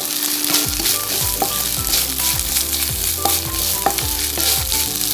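Freshly washed drumstick leaves sizzling in hot coconut oil in a kadai with shallots and dried chillies, stirred as they sauté to cook off their raw green smell.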